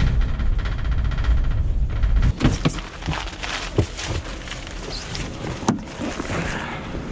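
A vehicle's engine rumbling for about two seconds, then a run of irregular knocks and thuds.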